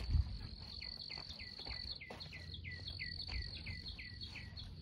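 Night-time outdoor chorus: a steady high insect trill under a rapid, even series of short falling chirps, about three a second. A soft low thump comes just after the start.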